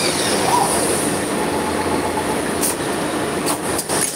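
Steady factory machinery noise, with a few sharp clicks in the last second and a half.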